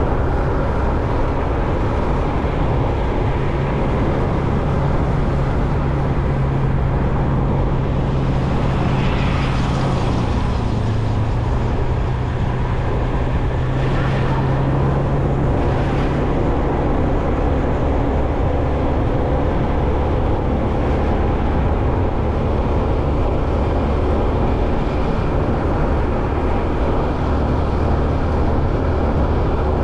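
A road vehicle driving: a steady low engine hum with road and wind rumble. A low engine note is strongest through the first half, and a few brief hisses come in the middle.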